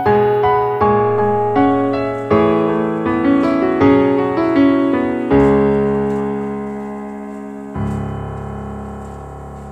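Background piano music: a gentle run of single notes, then a held chord, and a final chord struck near the end that slowly fades.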